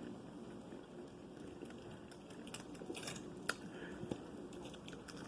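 Close-miked eating: chewing fried food, with a handful of sharp crunches and clicks from about halfway through.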